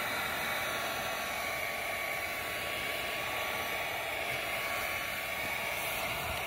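Handheld heat gun running steadily, blowing hot air onto a freshly glued flexible PVC hot-tub pipe joint to warm the glue.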